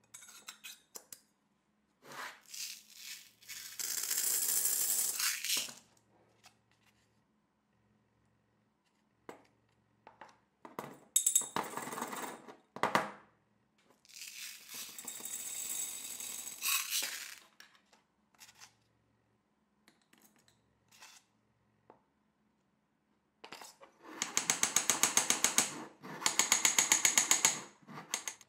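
Small high-carbon steel bearing balls clattering and rattling into a square steel tube, in several bursts of a few seconds each.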